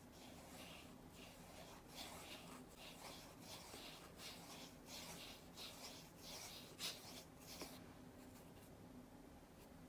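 Faint paintbrush strokes on watercolour paper: short, repeated scratchy brushing, about two to three strokes a second, that stops about eight seconds in.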